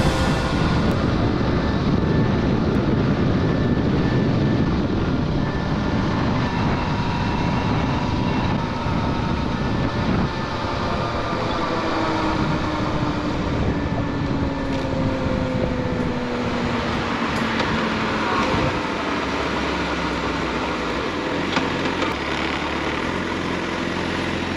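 Motorcycle riding along with heavy wind rush over the microphone and its engine running underneath; from about halfway through, the engine note falls steadily as the bike slows, and near the end the sound settles lower and quieter as it rolls slowly.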